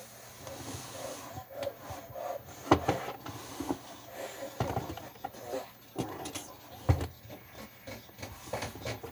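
Small objects being handled and set down on a desk: irregular knocks, clicks and rustling, with the sharpest knocks about three seconds in and just before seven seconds.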